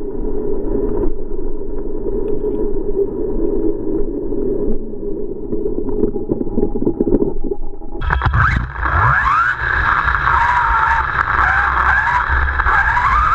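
Brushless electric motor and drivetrain of a 1/10 scale RC off-road buggy, heard from a camera mounted on the car, with the sound slowed down and deepened. At first it is a low, scratchy rumble. About eight seconds in it switches abruptly to a louder whine that rises and falls in pitch as the motor revs.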